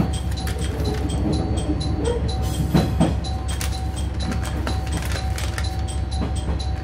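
Inside a diesel railcar rolling into a station: a steady low engine rumble and a constant whine, with the wheels clicking over rail joints and points. Two louder knocks come about three seconds in.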